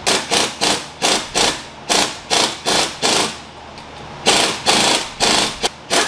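Cordless impact wrench hammering on the forcing screw of a harmonic balancer puller, pulling the balancer off a 5.7 HEMI crankshaft. It runs in about a dozen short trigger bursts, roughly three a second, with a pause a little past halfway.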